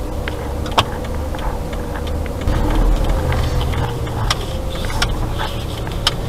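Inside a car's cabin: steady low rumble of the engine and tyres at parking-lot speed, swelling a little about two and a half seconds in, with a few sharp clicks scattered through it.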